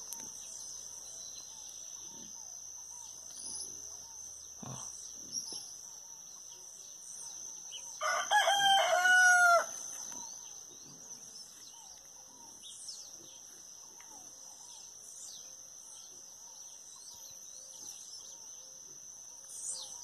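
A rooster crows once, about eight seconds in, the loudest sound, over a dawn chorus of small birds chirping and a steady high-pitched insect buzz.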